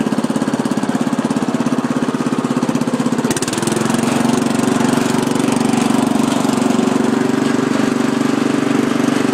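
Murray riding lawn mower's engine running while the mower drives over grass. About three and a half seconds in, the engine note changes to a steadier, slightly louder hum.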